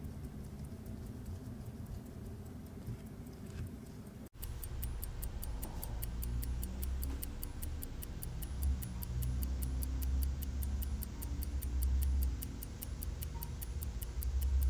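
A century-old Henry Sandoz pocket watch movement ticking steadily at about five ticks a second, running again with its balance freshly installed. From about four seconds in, the ticks become much louder and crisper over a low hum.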